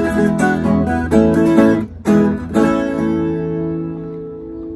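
Two acoustic guitars playing the closing bars of a song: plucked notes, a short pause, then two strummed chords, the last one left ringing and slowly fading as the final chord.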